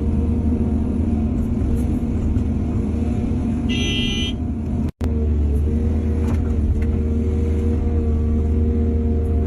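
Heavy diesel engine of an excavator running steadily with a deep rumble. A short high-pitched tone sounds about four seconds in, and the sound cuts out for an instant about a second later before the engine resumes.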